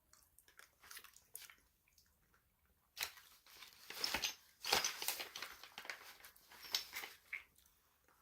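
Close-up chewing and crunching of crisp food: a few light crunches at first, then a dense run of loud crunching from about three seconds in, loudest near the middle.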